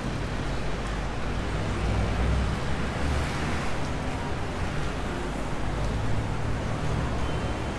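Steady noise of a busy city street: a constant low rumble of vehicle traffic with a broad hiss over it.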